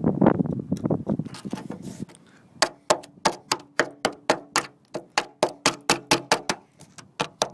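Hammer blows on the rusted steel of a car's wheel arch, about four sharp, ringing strikes a second starting about two and a half seconds in. The strikes follow a short rough scraping.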